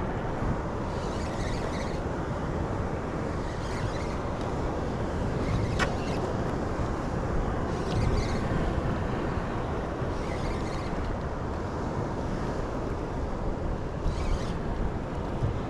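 Wind buffeting the microphone over open sea water, a steady rushing noise, with a single sharp click about six seconds in.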